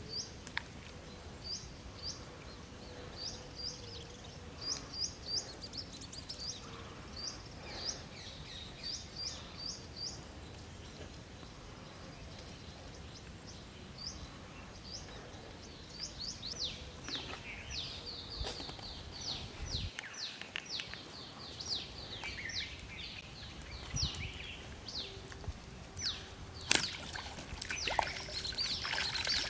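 Small birds chirping repeatedly in short quick notes, many of them falling in pitch. Near the end, a few sharp splashes as a hooked fish thrashes at the pond's surface.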